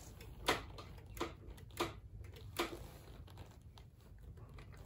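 A few light clicks and knocks of tools and parts being handled, about four spaced over the first three seconds, then fainter ones.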